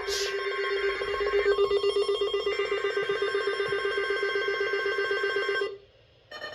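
Weather alert radio's alarm sounding for a tornado watch: a steady, rapidly pulsing trill that cuts off suddenly near the end.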